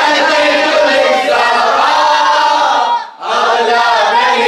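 A gathering of men chanting a Shia mourning lament (latmiyya) together, in long held and sliding lines. The chant breaks off briefly about three seconds in, then resumes.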